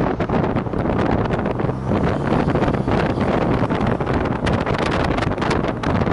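Wind buffeting the microphone of a REWACO RF-1 LT turbo trike on the move, gusty and uneven, over a low steady engine drone while cruising.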